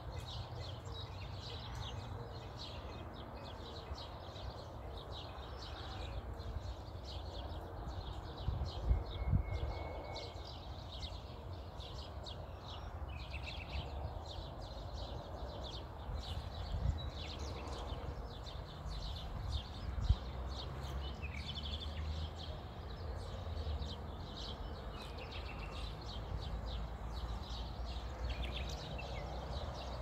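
Mixed songbird chorus: many small birds chirping and singing throughout, over a steady low wind rumble on the microphone, with a few louder gusts thumping.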